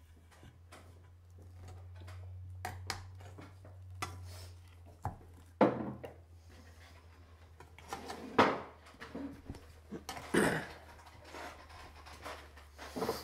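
Spoons clinking and scraping on plates during a meal, with scattered clicks and a few louder knocks, over a low steady hum.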